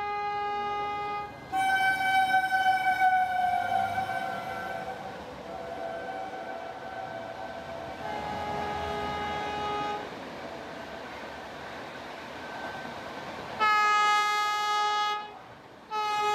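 Train horns sounding: several long horn notes, one falling slightly in pitch, then two loud blasts about two seconds apart near the end from a Vande Bharat Express trainset approaching on the adjacent line.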